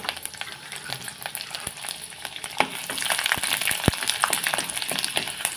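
Garlic cloves, mustard seeds and urad dal frying in hot oil in a clay pot, with scattered pops and crackles as it is stirred; the sizzle grows louder about three seconds in.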